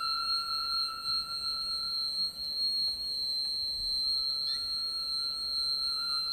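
Sustained high-pitched electronic tones layered into a steady, ringing drone from the performance soundtrack; the lowest tone drops out about two seconds in and comes back about two seconds later.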